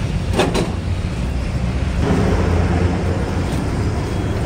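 A steady low rumble, with two short metallic clinks about half a second in as wheel nuts and a socket are handled at a truck's wheel hub.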